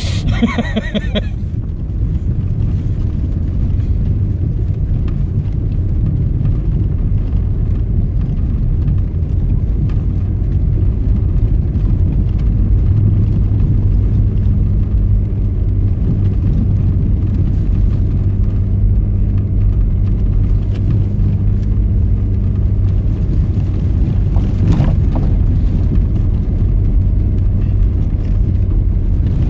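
Cabin noise of an Alfa Romeo Spider V6 driving on a snowy road with snow chains fitted: a steady low engine and road rumble. The engine's hum comes through as a steadier tone for several seconds about halfway through.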